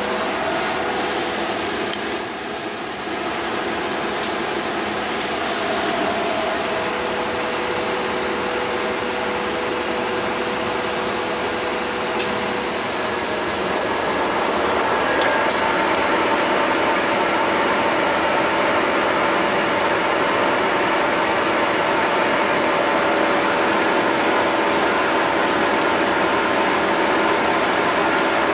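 Bullard Cutmaster 42-inch vertical turret lathe running, its table spinning with a steady whine from the drive. About halfway through the whine rises in pitch and the machine gets louder as the table shifts up to a higher speed.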